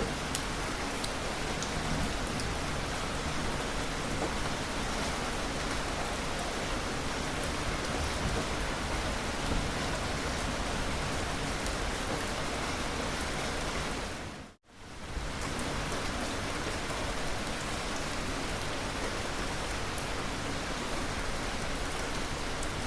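Steady heavy rainfall, an even hiss of drops on surfaces. Its level dips away to silence for about half a second, some fourteen seconds in, then fades back up.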